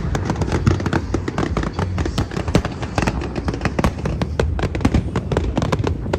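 Aerial fireworks going off in a rapid, continuous string of bangs and crackles, several a second, over a low rumble.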